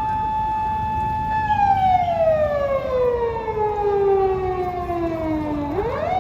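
Japanese police patrol car siren wailing. It holds one tone, slides slowly down in pitch over about four seconds, then sweeps quickly back up near the end and holds again.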